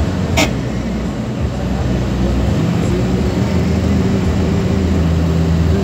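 Engine and road noise inside a moving shuttle van's cabin: a steady low hum, with one short sharp click about half a second in.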